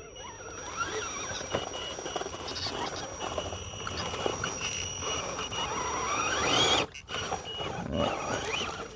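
The electric motor and gear drive of a modified Element RC Enduro Sendero crawler whining, its pitch rising and falling with the throttle. The whine climbs higher about seven seconds in, then cuts off abruptly, over rustling of brush against the truck.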